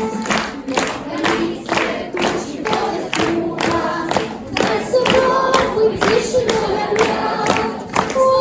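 Music with a steady beat of about two a second under a melody line, with choir-like singing but no clear words.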